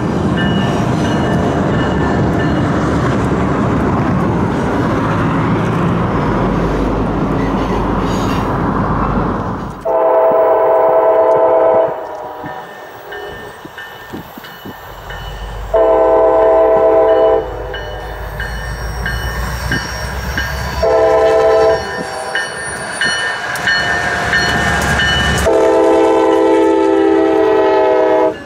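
Rumble of a train rolling along. Then a diesel locomotive's horn sounds the grade-crossing signal as the train approaches: two long blasts, a short one, and a final long one.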